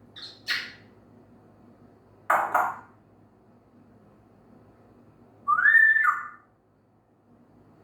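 African grey parrot calling three times, a couple of seconds apart: a short call, a louder harsher one, then a clear whistle that rises, holds and drops.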